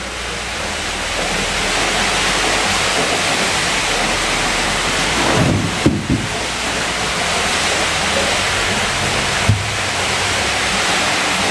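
Steady, loud rushing noise of the oil mill's running machinery, with a few dull knocks around six seconds in and again near the end as the pressed walnut cake and its cloth are handled.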